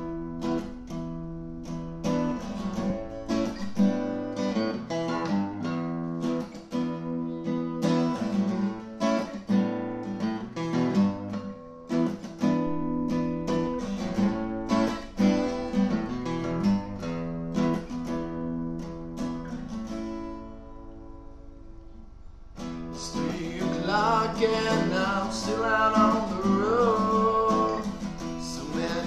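Acoustic guitar music with picked notes and a short lull about twenty seconds in. After the lull a fuller strummed part comes in.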